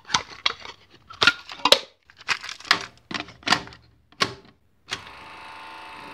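A quick, irregular run of sharp clacks and knocks, then a steady hum made of many held tones starting about five seconds in.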